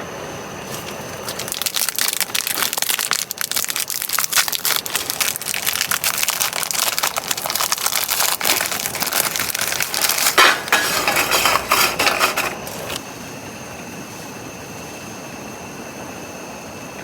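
Dense, irregular crackling that stops abruptly about thirteen seconds in, leaving a faint, steady high-pitched hum over a low hiss.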